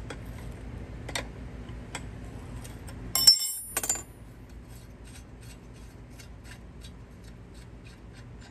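Steel wrenches clicking against a strut's top nut as it is worked loose, then a loud ringing clank a little over three seconds in as a wrench meets the concrete. After that, faint regular ticking as the nut is turned off by hand.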